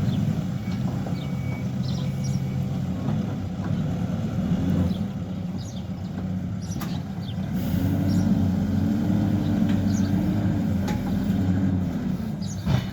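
Hidromek backhoe loader's diesel engine running. Its revs rise and waver for a few seconds about two-thirds of the way through, with a few sharp knocks over it.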